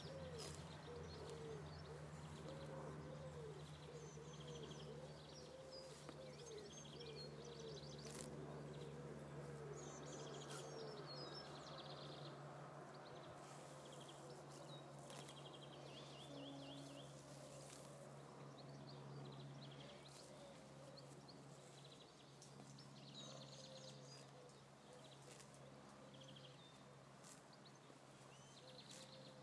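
Faint outdoor quiet: a yearling Gypsy cob colt grazing, with scattered crisp clicks of grass being torn and chewed, small birds chirping in the background, and a low steady hum underneath.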